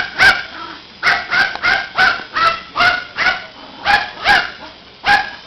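Yorkshire terrier yapping: a rapid series of about a dozen short, high-pitched barks, often in quick pairs.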